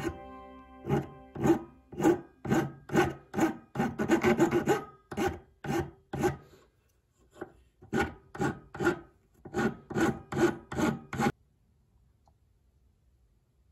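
Flat hand file rasping across a zebrawood carving-tool handle, shaping the wood in strokes about two a second. The strokes pause briefly in the middle and stop near the end.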